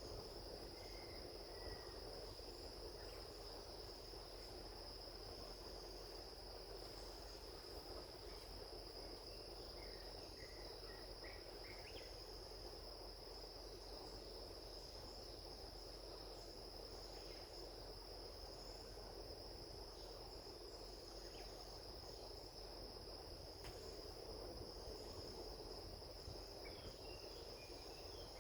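Faint, steady insect trill, a continuous high-pitched tone that never breaks, with a few short faint chirps over it.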